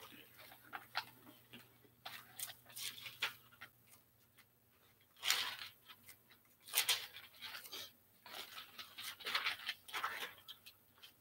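Thin Bible pages being leafed through by hand: a run of soft paper rustles and page flicks, with a few louder swishes of turned pages in the second half.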